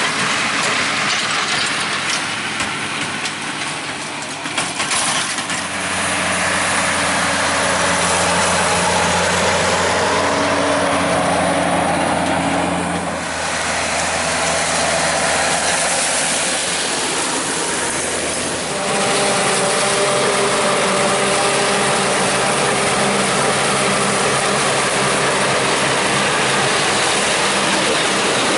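Heavy farm machinery running steadily as corn silage is harvested: large tractor engines pulling silage wagons and carts. In the last part, a Claas Jaguar forage harvester chops corn and blows silage into a wagon alongside a tractor. The engine note changes abruptly three times as one machine gives way to another.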